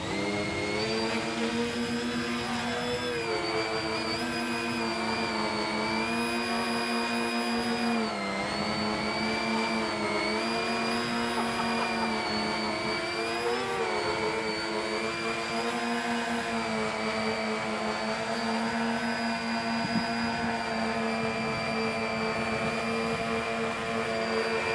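RC Canadair CL-84 Dynavert model's propellers and motors running with a steady, high whine, as the tilt-wing model flies through its transition from hover toward forward flight. The pitch dips briefly a few times with throttle changes.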